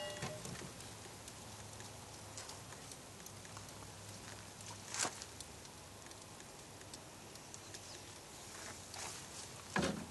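Faint steady low hum, with light knocks about five seconds in and again near the end, as a rock is handled and set against the blade of a water-cooled 12-inch drop saw.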